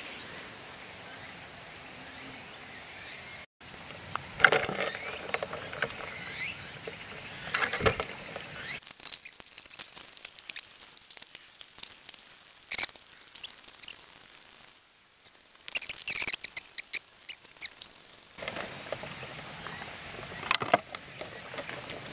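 Rustling and scattered sharp clicks and taps as live red swamp crayfish are shaken out of a mesh trap bag into a glass jar, their shells and claws knocking on the glass.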